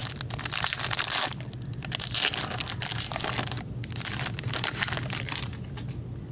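Foil wrapper of a hockey trading-card pack being torn open and crumpled by hand: loud crinkling in two bursts over the first three and a half seconds, then lighter rustling.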